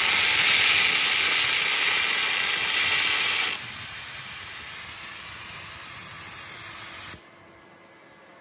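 Automated air carbon arc gouging tractor cutting steel: a loud, steady hiss and crackle of the carbon arc and its compressed-air jet. It drops to a lower level about three and a half seconds in and cuts off suddenly about seven seconds in.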